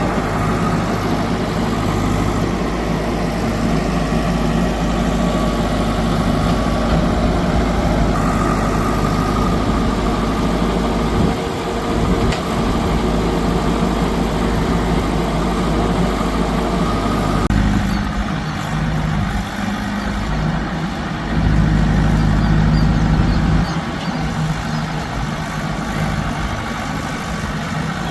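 Heavy diesel engines of a backhoe loader and farm tractors running, mostly at a steady idle. The sound changes abruptly about two-thirds of the way through, and a louder low engine note follows for a couple of seconds.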